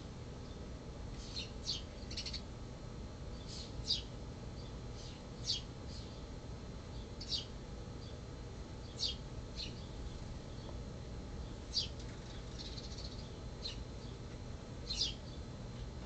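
Northern cardinal giving short, sharp high chip notes, about fifteen, one or two at a time every second or two.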